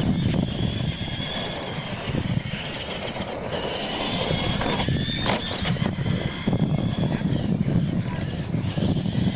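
Two R/C monster trucks racing: their electric motors whine high, rising as they accelerate and dropping as they ease off, several times over. A sharp knock comes about five seconds in.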